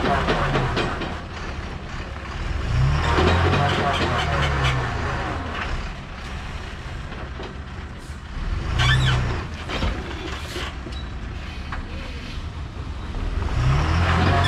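Heavily loaded 12-wheel lorry's diesel engine running and revving up in swells, about three seconds in, about nine seconds in and again near the end, as it manoeuvres at low speed. Short hisses of air brakes around the middle.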